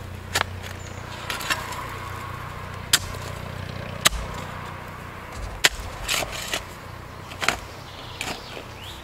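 Metal spade blade jabbing and scraping into hard clay full of stones, digging a planting hole: a sharp knock or scrape every second or so, irregularly spaced.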